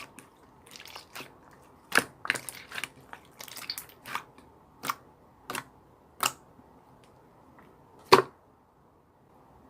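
Purple pearl slime being pressed and squeezed by hand, giving a string of sharp clicks and pops as air pockets burst, about a dozen over several seconds, the loudest about eight seconds in.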